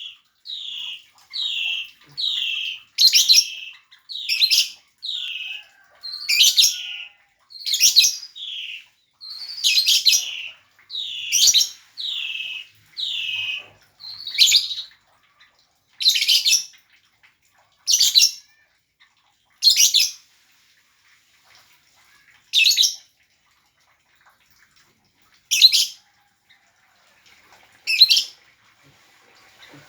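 Lovebird calling: a quick run of shrill chirps, each falling in pitch, about one to two a second for the first half, then single sharper shrieks spaced two to three seconds apart.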